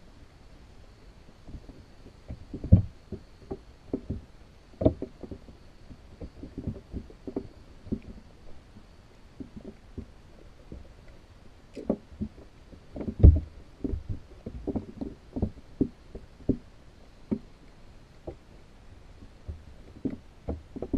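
Muffled, irregular knocks and thumps heard through a GoPro's waterproof housing underwater inside a pinfish trap, a few a second, with the loudest about 3 s and 13 s in.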